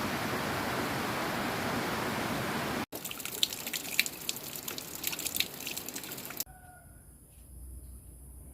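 Waterfall's steady rush of falling water, then, after an abrupt cut about three seconds in, water trickling and dripping with many small sharp splashes. A second cut near the end drops to a much quieter background.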